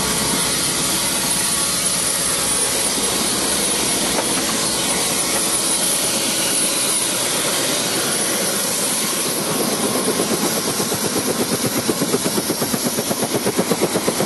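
Helicopter running at close range: a steady engine rush with a thin high whine. From about ten seconds in, a rapid, regular beat of the rotor blades comes in.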